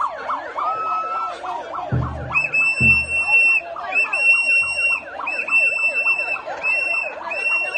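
Women ululating in a rapid, warbling chorus. From about two seconds in, shrill whistle blasts repeat roughly once a second, and there are a couple of low thuds.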